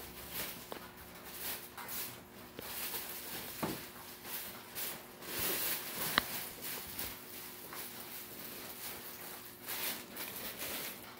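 Plastic prop panels being handled and fitted together: rustling and scraping, with one sharp click about six seconds in.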